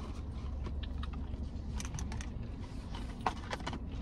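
Close-up eating sounds of someone chewing a chicken sandwich: a scatter of small wet mouth clicks, over a steady low hum.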